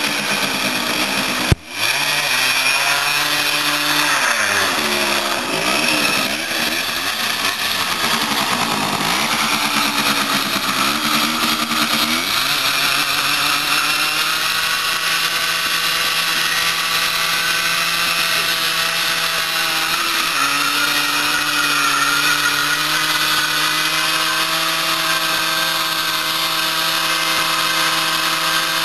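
Suzuki PV 50 cc two-stroke moped engine revving hard. The pitch swings up and down for the first dozen seconds, then is held at steady high revs in a burnout attempt. There is a single sharp knock about a second and a half in.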